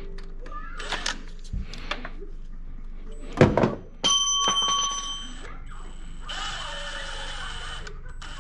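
Knocks and clinks of metal tools and parts, the loudest a knock about three and a half seconds in, followed by a short metallic ring.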